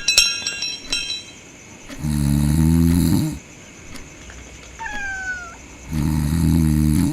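A person snoring: two long snores about four seconds apart. A cat meows once between them, a short call falling in pitch, and a few clicks with a brief ringing come right at the start.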